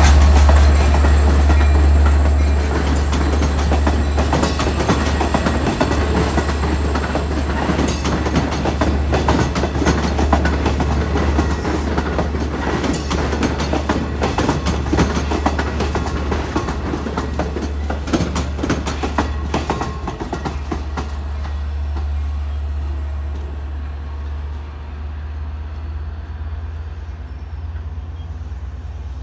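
Long Island Rail Road diesel locomotive and bilevel coaches passing close by, with a loud low engine rumble and the wheels clicking and clattering over rail joints. It fades steadily as the train moves away, the clatter dying out over the last several seconds.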